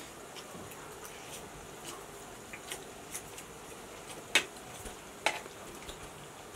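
Quiet eating: noodles being slurped and forks scraping and clicking on plates, with two sharper clinks about four and five seconds in.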